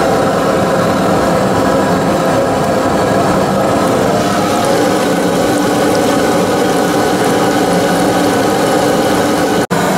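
Fish deep-frying in a two-basket propane fryer: the oil bubbling and sizzling steadily, with a steady hum underneath. The sound cuts out for an instant near the end.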